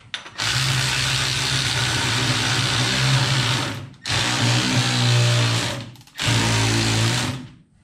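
Cordless power ratchet running in three bursts of a few seconds each, with short pauses between, as it works a tight rear axle bolt out of a snowmobile's rear suspension skid.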